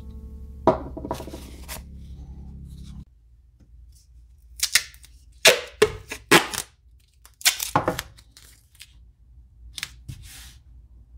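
Silver tape pulled off a roll and torn, several sharp rasping pulls in a row, then lighter rustling as the strip is smoothed flat on a wooden bench. Acoustic guitar music stops about three seconds in.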